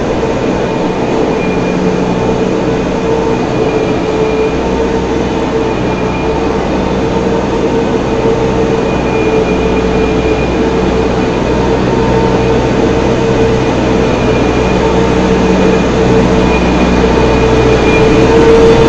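Tractor-drawn feed mixer wagon running as it unloads feed along the feed bunk: a steady mechanical drone with a constant whine from the mixer drive over the tractor's low engine rumble, growing a little louder toward the end as it comes closer.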